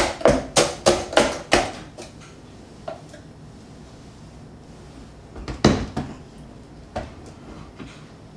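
A wooden spoon jabbing at frozen strawberries in a Vitamix blender jar, a quick run of sharp knocks about three a second for the first second and a half. The blender motor is off. Near six seconds there are a few louder knocks as the jar is set back on its base, then one more knock a second later.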